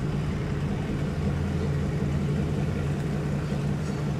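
Boat engine idling with a steady low hum.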